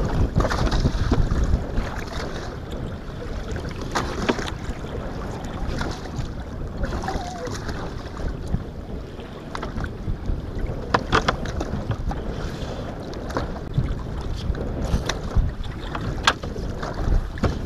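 Wind buffeting the microphone and water sloshing against the side of a small fishing boat on choppy water. A few sharp knocks and clicks break through, about 4, 11 and 16 seconds in.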